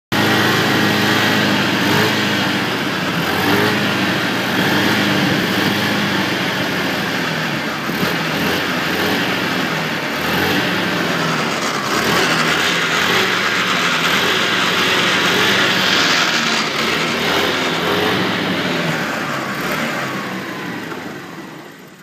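Propel Daytona scooter engine running while parked, its pitch and level shifting slightly as it is revved a little. It dies away near the end.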